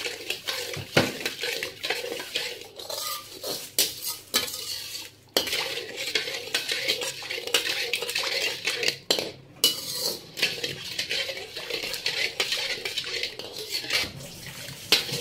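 Metal slotted spoon stirring thick, wet semolina-and-gram-flour halwa batter in a metal wok, scraping and clinking against the pan in uneven strokes.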